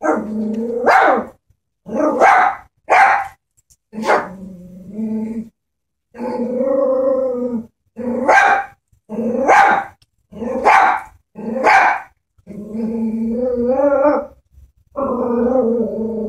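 Chihuahua barking in short, sharp yaps, broken by three long growls of a second or two each. It is defensive barking and growling at a stuffed toy horse that the dog is wary of.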